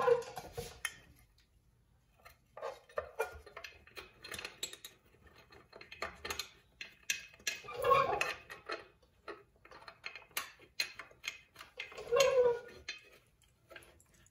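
Metal valve-chamber covers and small parts being handled and fitted against a flathead six engine block: a string of light clicks and clinks, with a few louder metallic clanks near the start, about eight seconds in and about twelve seconds in.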